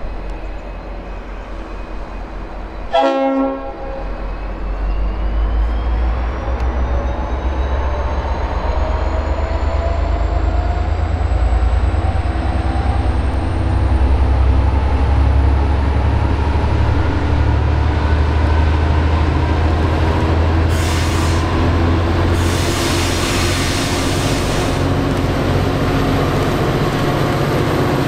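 V/Line N class diesel locomotive: one short horn blast about three seconds in, then the engine's low rumble growing louder as the train pulls closer, with a whine that rises steadily in pitch as it picks up speed.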